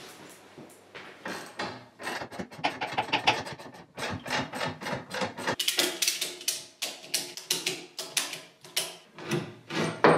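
Rapid clicking and clattering of hand work on a motorcycle lift: a ratchet strap being worked and the lift's front-wheel clamp being set. Quiet for about the first second, then dense runs of clicks and knocks.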